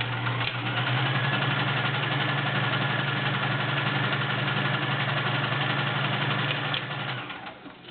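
Kenmore 385.1249 convertible sewing machine running steadily at speed while stitching: a steady motor hum with rapid needle clatter, picking up about a second in and stopping shortly before the end.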